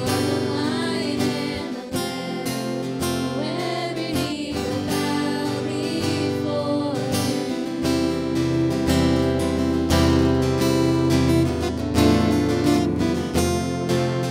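Live worship music: singing over a strummed acoustic guitar, the band growing fuller and louder about eight seconds in.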